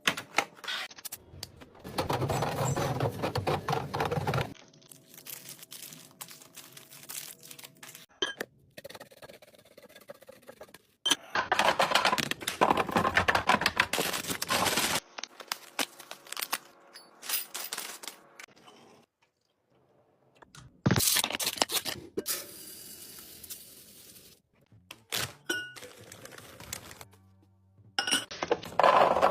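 Household items and packaging being handled: clicks, clinks and knocks of containers being set down and opened, with several spells of louder rustling or pouring-like noise in between.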